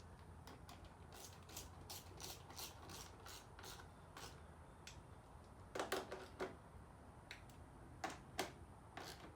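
Faint clicks and rubbing as parts are handled and fitted onto a dirt bike during assembly. There is a run of light ticks, then a cluster of louder knocks about six seconds in and a few more near the end.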